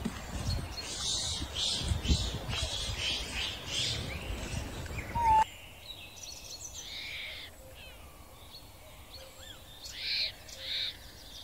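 A baby macaque squealing: short, high-pitched cries, several near the end, after the audio changes abruptly about five seconds in. Before that, repeated high chirping calls over a low rumble.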